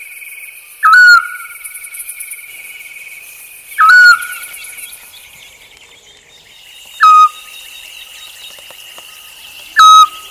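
An owl's short whistled note, repeated four times about three seconds apart, each dipping slightly in pitch at the start and then held briefly. Behind it runs a steady high pulsing chirr of insects.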